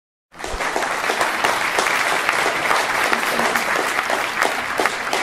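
Audience applauding, starting suddenly after a brief silence and keeping up a dense, steady clatter of claps.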